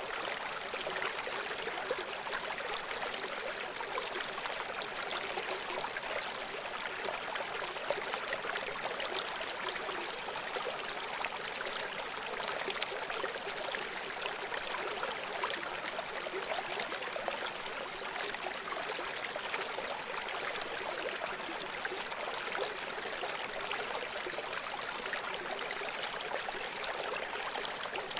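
Running stream: water flowing and splashing over rocks, a steady babbling rush with fine trickling detail.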